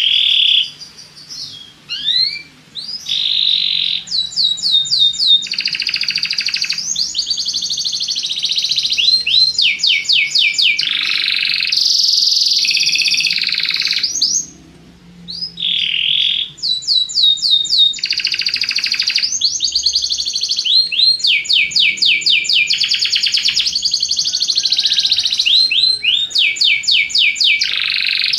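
Belgian canary (domestic canary) singing a long, loud song of rapid trills and quickly repeated rising notes, with a short pause about halfway through.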